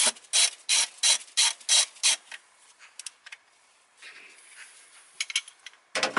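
Hand ratchet with a 10 mm socket clicking in quick, even back-and-forth strokes, about three a second, as it undoes an engine cover nut; the clicking stops a little over two seconds in. A few faint ticks follow, then a louder rattle right at the end.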